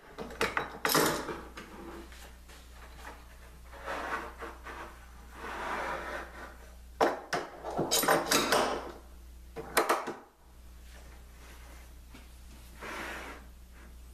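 Irregular knocks, scrapes and rubs of wood and tools being handled on a workbench, over a steady low electrical hum. There is no power tool running.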